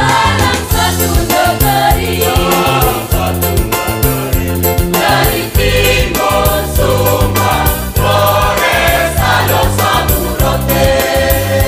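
Choir singing a song in several voice parts, over a steady low instrumental accompaniment.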